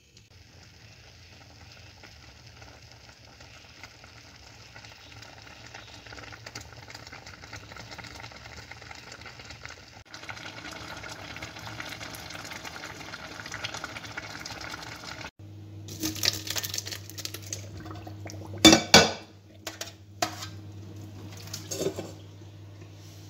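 Spinach boiling hard in a steel pot, a steady bubbling hiss. It cuts off suddenly, and a low hum and the clatter of pots and dishes being handled follow, with two loud knocks near the end.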